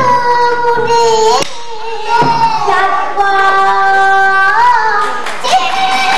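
A young girl singing pansori solo, holding long sustained notes that bend and waver at their ends. A single sharp knock comes about a second and a half in.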